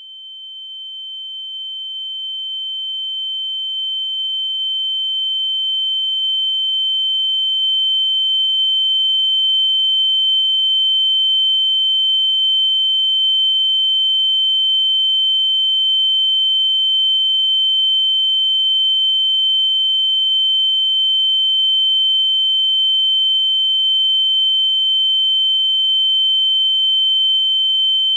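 A single steady, high-pitched electronic tone that swells up over the first several seconds and then holds unchanged at one pitch.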